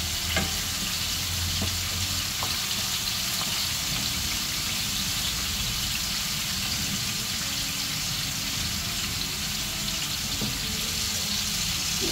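Chopped onions frying in hot oil in a pan, a steady sizzle, with a few light knocks of a wooden spatula against the pan in the first few seconds and once more near the end.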